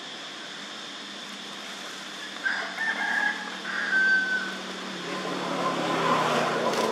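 A rooster crows once, about two and a half seconds in, over a steady background hiss. Toward the end, a motor vehicle swells in as it passes, its low engine note falling.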